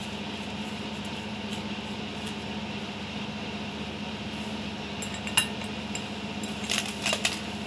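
Light clinks of a metal mesh sieve and dishes: one sharp clink about five seconds in as the sieve is set down on a plate, then a few quick clinks near the end, over a steady low hum.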